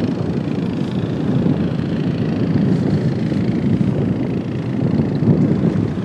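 Wind buffeting the camera microphone: a steady, loud, fluttering low rumble.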